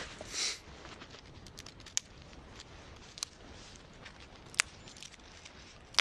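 Small dead twigs being snapped by hand: a short rustle of branches near the start, then a few sharp separate snaps, the loudest about two-thirds of the way through.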